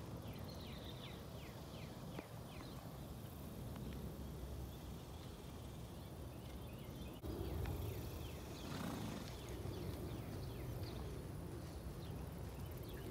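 Low, steady outdoor rumble of wind on the microphone, with a quick run of falling bird chirps in the first two seconds and more bird calls about eight seconds in.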